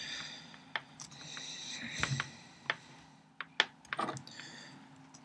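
A handful of small sharp clicks and light rustling as hands work a TRS cable's wire lead down into a hole of a solderless breadboard to seat it.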